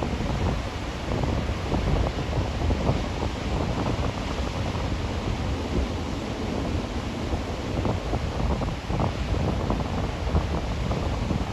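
Wind buffeting the microphone over the steady wash of heavy ocean surf, with gusts rising and falling unevenly. The surf is large and disorganised, overhead to double-overhead waves coming in close together.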